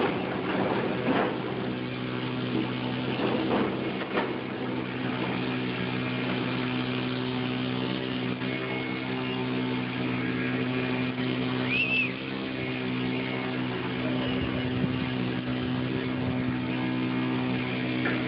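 A steady hum of constant pitch, with a few short scuffs in the first few seconds and one brief high chirp that rises and falls about twelve seconds in.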